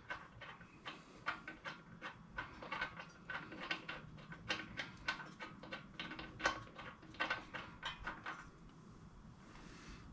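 Faint, irregular metal clicks and rattles of a socket wrench with a swivel-head socket backing a spark plug out of a 212cc Predator generator engine; the clicking stops shortly before the end as the plug comes free.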